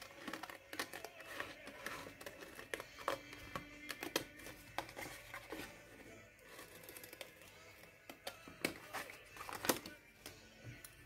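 Scissors snipping through paper in a string of short, sharp cuts, with paper rustling between them, over soft background music.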